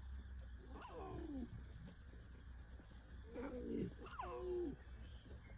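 Lion cubs calling: three short cries, each sliding down in pitch. One comes about a second in, and two more follow close together around three and four seconds in.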